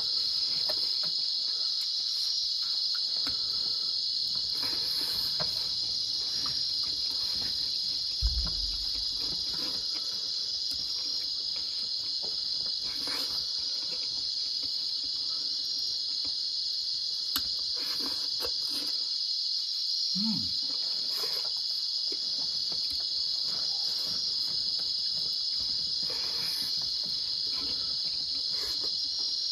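A steady, high-pitched chorus of insects, like crickets, goes on unbroken. Faint eating sounds of hands and mouths come under it, with a low thump about eight seconds in.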